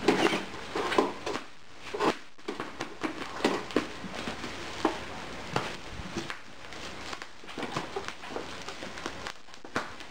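Plastic bubble wrap on a parcel crinkling and crackling as it is cut open with a knife and picked and pulled apart by hand, in many short, irregular scrapes and rustles.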